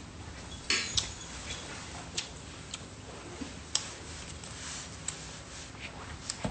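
Plastic fork clicking and scraping against a plastic fruit cup during eating: scattered sharp clicks, a cluster about a second in and single ones every second or so after, over a faint low hum.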